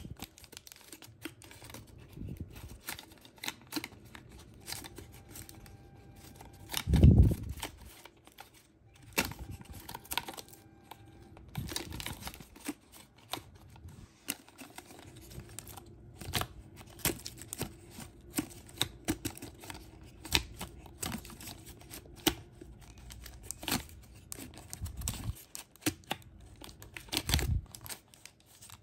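Homemade cardboard slider-crank model being turned and handled: irregular clicks, rattles and crinkling from the cardboard, plastic tape and wire crank, with a heavy thump about seven seconds in.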